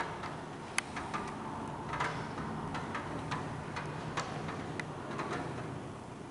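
Raindrops tapping irregularly against a window and sill, sharp separate ticks over a steady hiss of rain.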